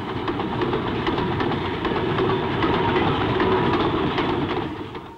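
Train of loaded open coal wagons rolling past, wheels clattering over the rail joints with many short clicks, fading out near the end.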